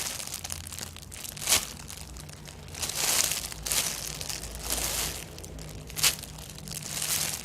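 Crinkling and rustling handling noise as a squishy foam toy is handled, coming in uneven bursts with sharp crackles about one and a half seconds in and again about six seconds in.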